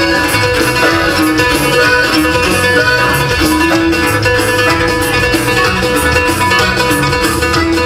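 Dance band playing an instrumental passage, led by plucked string instruments over a steady, pulsing bass.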